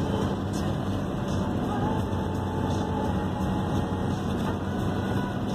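Steady road and engine noise heard inside a car's cabin while driving on a freeway: an even rush with a low hum underneath.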